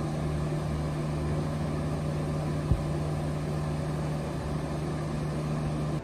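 TaoTronics AC001 10,000 BTU window air conditioner running, heard up close: a steady hum over the even rush of its fan. One brief knock comes about two and a half seconds in.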